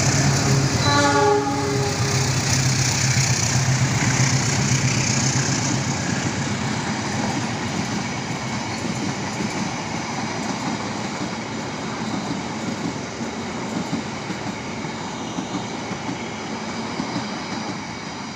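A GE-built CC206 diesel-electric locomotive thunders past at speed with its engine drone loudest at first, then the Argo Wilis's ten passenger coaches roll by with a continuous rumble of wheels on rails. The sound fades gradually as the train pulls away.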